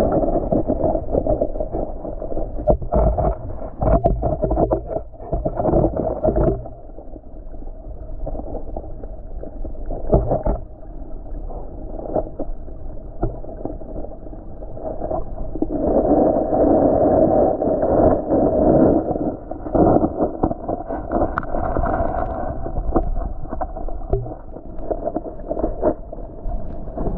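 Creek water heard underwater: a muffled, steady rushing with knocks and bumps now and then, loudest from about halfway through until a few seconds before the end.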